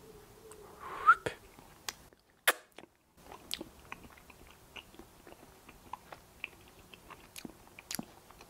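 A person chewing a mouthful of guacamole: quiet chewing with soft smacks and small mouth clicks scattered throughout, one louder click about a second in.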